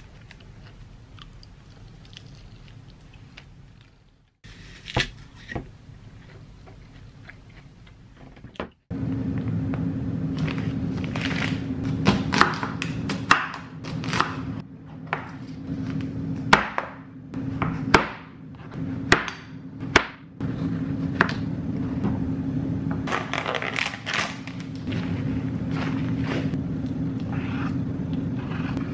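Kitchen knife chopping onion and sweet potato on a plastic cutting board: a string of sharp knocks as the blade strikes the board, starting about ten seconds in, over a steady low hum.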